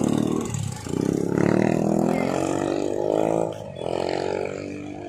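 Motorcycle engine passing close by, its pitch rising steadily as it accelerates for a couple of seconds before falling away, over the noise of road traffic.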